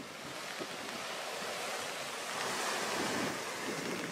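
Small waves washing up and drawing back over a sandy, pebbly beach, a steady hiss of surf that swells a little toward the middle.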